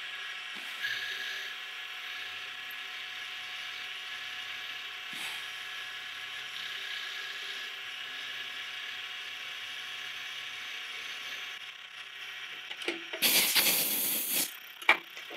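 Precision Matthews PM-728VT benchtop mill's spindle running at about 2,000 RPM, an end mill cutting a metal block with a steady hiss and whine. About 13 seconds in, a loud blast of compressed air from a blow gun clears the chips for about a second and a half, followed by a short click.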